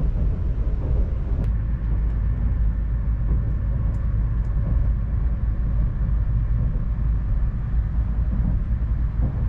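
Steady low rumble of an N700S Shinkansen running at speed, heard from inside the passenger cabin, with a few faint clicks.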